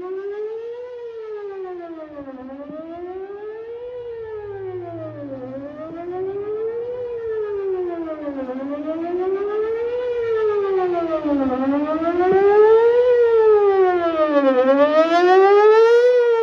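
Whelen WPS-4008 electronic outdoor warning siren sounding a wail, its pitch rising and falling evenly about once every three seconds. It grows louder through the second half.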